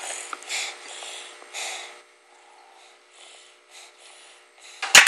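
A baby's metal spoon dropped from the high chair hits the floor with a sharp clatter at the very end. Before that, three soft, short breathy puffs in the first two seconds.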